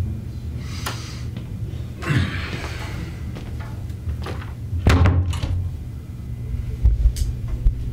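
Several separate thuds and knocks, like a door and furniture being banged about, the strongest about five seconds in and a few more near the end, over a steady low hum.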